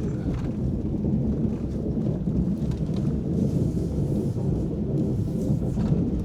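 Snowplow truck's engine running with a steady low rumble while it plows snow out of parking spots.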